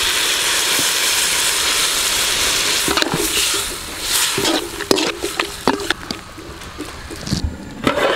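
Water poured into a hot metal pan of frying cauliflower masala, hissing and sizzling steadily for about three seconds. Then a metal spoon stirs and scrapes the pan with a run of clinks, and near the end a metal plate is set on the pan as a lid with a clank.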